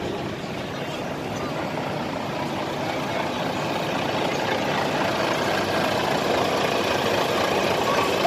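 Red Volvo FH tractor unit driving past close by, its diesel engine and tyres a steady noise that grows gradually louder as it comes alongside.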